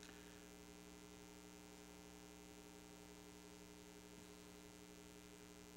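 Near silence with a steady, even electrical hum made of several constant tones.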